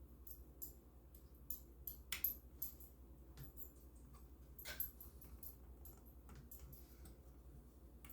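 Faint scattered clicks and light taps of small styrene plastic pieces being handled and fitted, over a low steady hum; the loudest taps come about two seconds in and again near five seconds in.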